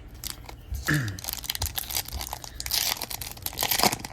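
Foil wrapper of a hockey card pack being torn open and crinkled, a dense crackling that starts about a second in and is loudest near the end.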